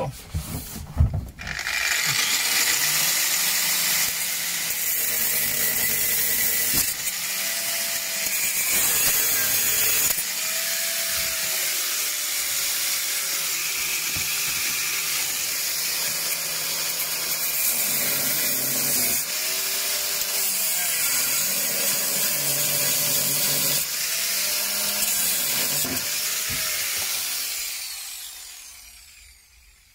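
Angle grinder with a cut-off disc cutting through the car's sheet-metal back panel. It starts about a second and a half in and runs hard, its pitch sagging and recovering several times as the disc bites. It winds down near the end.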